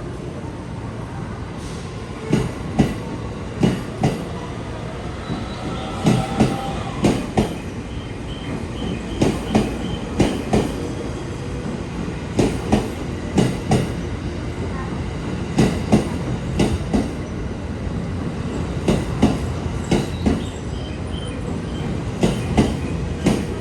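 E231 series electric train rolling past, its wheels clacking over the rail joints in close pairs as each bogie crosses, about one pair a second, over a steady rumble.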